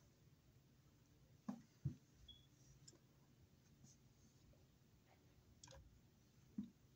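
Near silence broken by a few faint clicks and taps of hand work, two about a second and a half in and one near the end.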